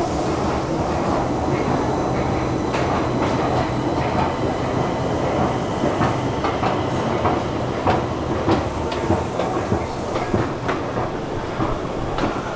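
Metro station escalator running: a steady mechanical rumble and hum, with sharp clicks and knocks about twice a second from a few seconds in.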